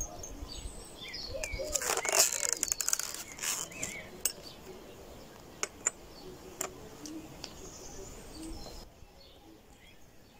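Wicker picnic basket being handled and its lid shut: a burst of creaking and rustling about two seconds in, then several sharp clicks as its metal latches are fastened. Birds chirp faintly in the background.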